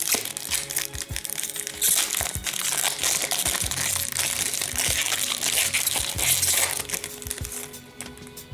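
A hockey card pack wrapper crinkling and crumpling as it is torn open and handled, loudest from about two seconds in until near the end, over background music.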